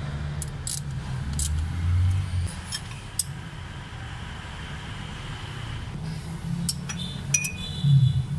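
Scattered metallic clicks and clinks of a socket wrench turning a bolt on a timing-belt pulley, over a low steady hum. A cluster of clicks and a short ringing clink come near the end.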